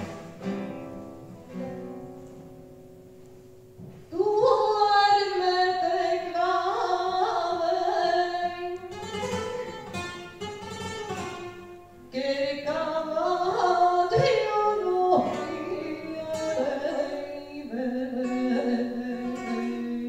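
A woman singing long, drawn-out phrases with a wavering, ornamented pitch to a classical guitar accompaniment. The guitar plays alone at first, and the singing comes in about four seconds in, with short breaks between phrases.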